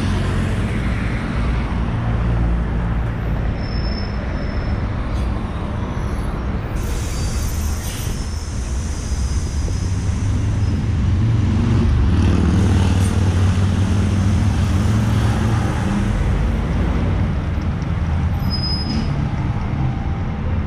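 City buses pulling up to a stop, their engines running with a steady low rumble. About seven seconds in there is a short hiss of compressed air, typical of air brakes, and there are a couple of brief high squeaks.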